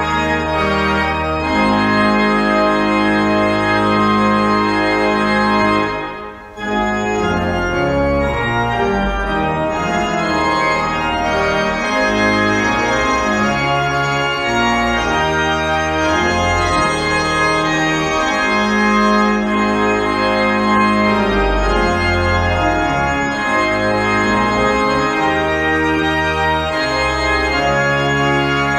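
Pipe organ playing sustained chords over a changing bass line, with a brief break about six seconds in before the playing resumes.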